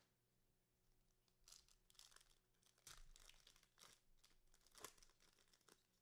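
A foil trading-card pack wrapper being torn open and crinkled by hand, a faint run of irregular crackles and rips with one sharper rip near the end.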